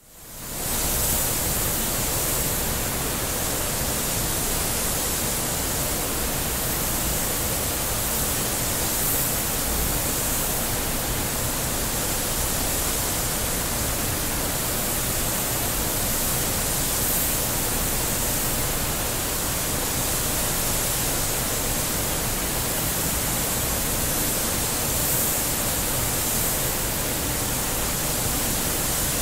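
Steady rushing noise of a factory opposed electrostatic painting system, fading in over the first second and then holding level, with no distinct mechanical rhythm or tone.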